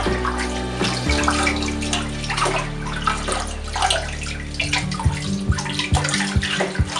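Kitchen tap running into a stainless steel sink that holds standing water, with splashing as lettuce leaves are swished and rinsed under the stream.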